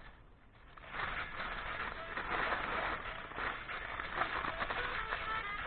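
Aluminium foil crinkling and rustling as a food packet is wrapped, a dense crackly rustle that starts about a second in.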